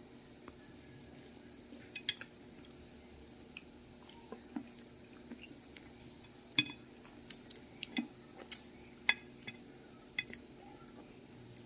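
Sugar apple (atis) being eaten: scattered short clicks and clinks of a dish and utensils, a dozen or so at irregular intervals over a faint steady hum.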